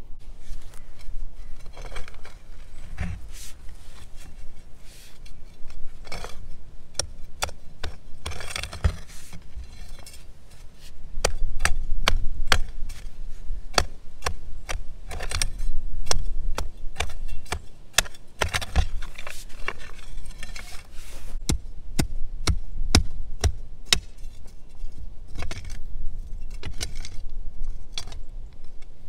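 Narrow steel trenching spade chopping and scraping into hard clay soil at the bottom of a trench: many sharp strikes and gritty scrapes, irregularly spaced, a few a second at the busiest.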